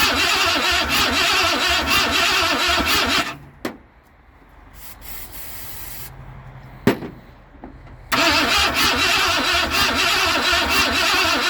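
Starter cranking a 1973 Ford Falcon's 351 Cleveland V8 over in an even rhythm without it catching. It stops a little over three seconds in, a sharp click sounds in the pause, and the cranking starts again about eight seconds in. The engine won't fire, which the owner puts down to a bad carburettor with vacuum leaks.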